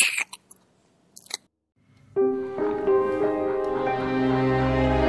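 A few sharp crunching clicks, like chewing, in the first second and a half, then after a brief quiet, background music with sustained notes comes in and carries on.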